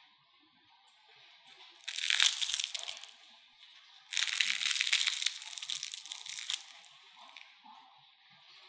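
Crispy deep-fried potato spirals, made of mashed potato and corn starch, crackling as their crust is torn open by hand: a short burst about two seconds in and a longer one of about two and a half seconds from about four seconds in.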